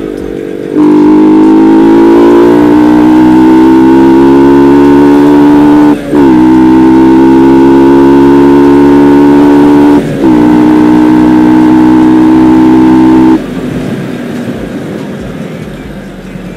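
Yamaha R15 V2's single-cylinder four-stroke engine accelerating hard, its note rising as the rider pulls through the gears, with two brief breaks at the upshifts. About three-quarters through the throttle is closed and the engine note falls away to a quieter rush.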